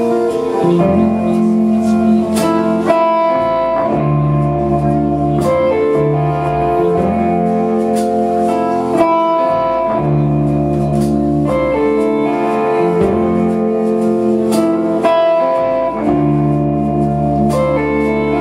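Band playing an instrumental passage led by guitar, with sustained low notes underneath.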